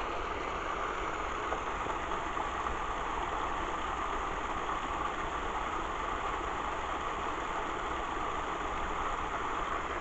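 Stream water rushing steadily down a small stone-lined cascade.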